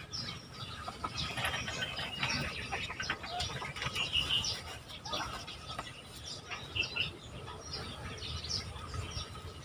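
Feathers and towel cloth rustling and brushing as a hen turkey is held and a cloth saddle is worked over her legs, with a few short bird chirps.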